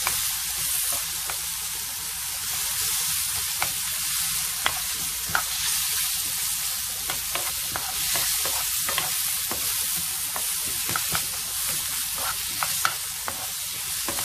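Sliced carrots, mushrooms and onion sizzling in oil in a nonstick frying pan, stirred with a silicone spatula. A steady frying hiss runs under scattered light clicks and scrapes of the spatula against the pan.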